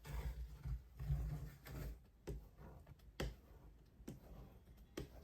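Faint handling noise: low rumbling for the first two seconds, then about five light knocks spaced a second or so apart, as hands work the window film against the glass.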